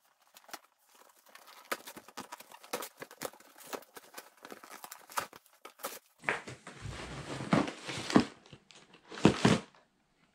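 Cardboard shipping box being torn open by hand: scattered crackles and tearing of cardboard and tape. From about six seconds in the tearing and rustling grow louder, with a few dull thuds as the box is handled.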